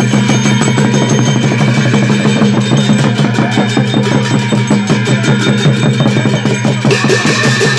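Gai Jatra festival percussion with fast clashing brass hand cymbals and drum, over a steady low engine hum.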